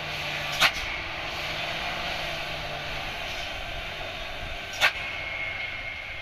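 Heavy truck going down a steep road, with a steady engine and tyre noise. There are two sharp clicks, one under a second in and one near five seconds, and a thin steady high tone over the last second.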